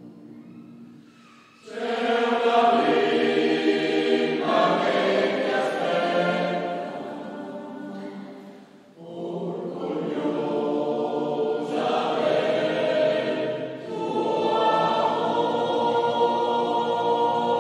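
Choir singing in a church, in three sung phrases: it comes in strongly about a second and a half in, eases off and breathes briefly about eight to nine seconds in, then sings on.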